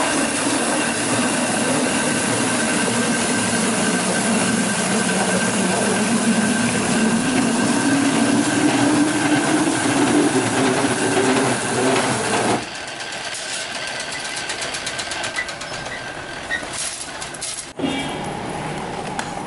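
Rotary veneer peeling lathe running, turning a log against its knife and peeling off a continuous sheet of thin wood veneer: dense, steady machine noise with a low hum that slowly rises in pitch. About two-thirds of the way in, it gives way to quieter workshop noise with scattered clicks and knocks as veneer sheets are handled.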